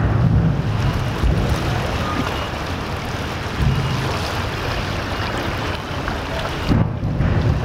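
Wind buffeting the microphone in gusts over rough, choppy river water splashing and churning.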